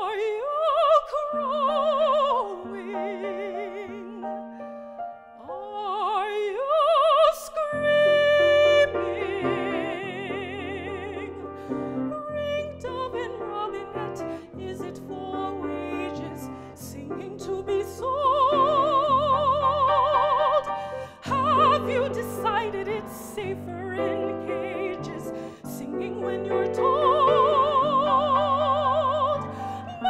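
A soprano singing in classical operatic style with a wide vibrato, accompanied by a grand piano. About eight seconds in, the piano fills out with deep bass notes beneath the voice.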